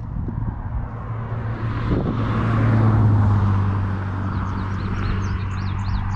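International 4900's DT466E inline-six turbo diesel idling steadily, swelling louder about halfway through. Birds chirp faintly near the end.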